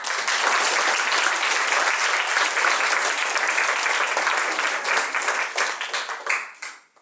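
Audience applauding: many people clapping, starting suddenly, holding steady and dying away near the end.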